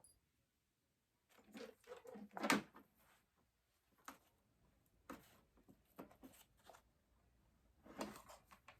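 Packaging and small parts being handled at close range: several bursts of rustling, clicks and light knocks, the loudest about two and a half seconds in.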